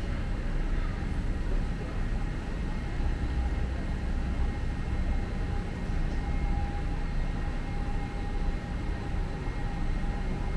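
Steady low rumble of the ambience in a large roofed market hall, with a faint steady whine over it.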